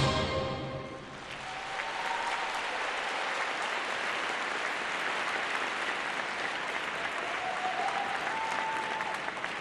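Arena crowd applauding and cheering at the end of a figure skating program, with a few faint whistles. The final chord of the program music dies away in the first second.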